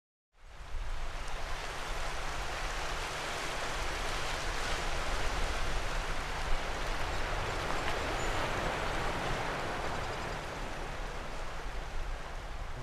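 Sea surf washing over a rocky shore: a steady rush of water that fades in within the first second and swells a little in the middle.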